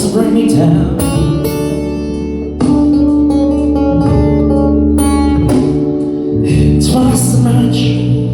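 Music: a guitar played with a singing voice, with long held notes.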